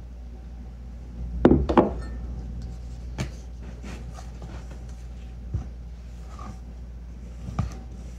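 Flour-and-milk pancake batter being stirred with a silicone spatula in a plastic mixing bowl, with a quick cluster of loud knocks about a second and a half in and a few single knocks of the spatula against the bowl after that.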